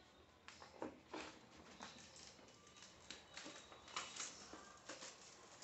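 Faint rustling and crinkling of a plastic mailer bag and packaging being handled, with scattered soft ticks and taps.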